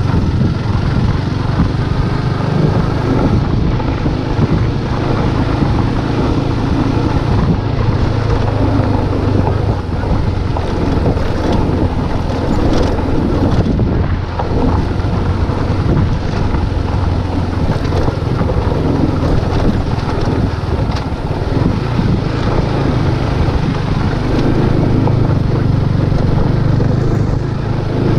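Motorcycle engine running steadily while riding, with wind noise on the microphone.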